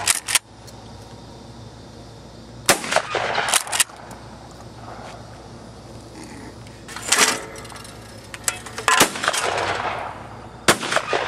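Shotgun shots at clay targets: several sharp reports spread across a few seconds, each with a brief noisy tail.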